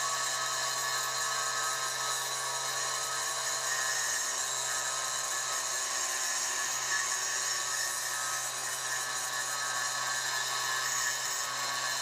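High-speed rotary grinder running steadily with a high whine, as used for porting a two-stroke cylinder.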